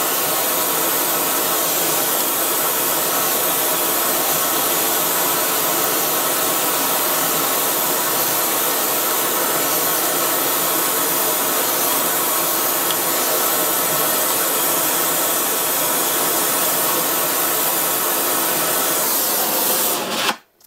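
Gas torch flame hissing loudly and steadily while it heats the seized nuts and studs on a cast-iron steam waggon regulator body to free them; it cuts off suddenly near the end.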